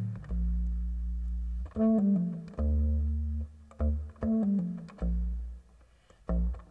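Contrabass clarinet playing a slow melody of long, low, reedy notes, with a quick run of short notes stepping downward between them and brief gaps between phrases.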